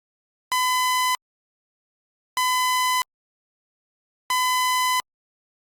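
Three identical electronic beeps on one steady tone, each lasting under a second and about two seconds apart, with dead silence between them. They are the end-of-message tones of a mock Emergency Alert System broadcast.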